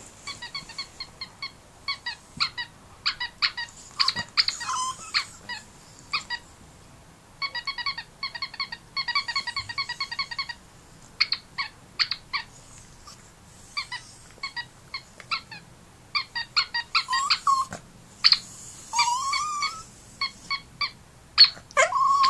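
A duck squeak sounding over and over in quick runs of short, high squeaks. Between the runs a Yorkshire terrier gives a few brief whines that rise in pitch.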